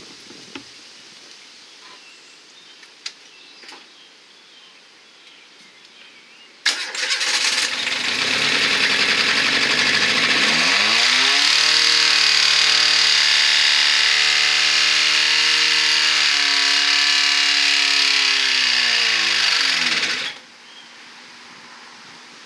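Renault Clio 1.2-litre four-cylinder engine, running with no oil and no coolant, starts suddenly about seven seconds in, rises to a high steady speed for several seconds, then winds down and stops about twenty seconds in.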